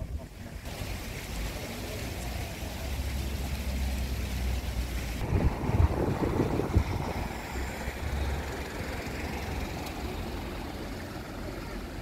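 Outdoor street noise: a steady low rumble of road traffic under a rushing noise like wind on the microphone. The sound changes abruptly about half a second in and again about five seconds in.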